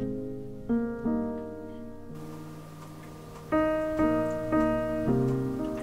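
Soft background piano music: slow notes and chords struck and left to ring out.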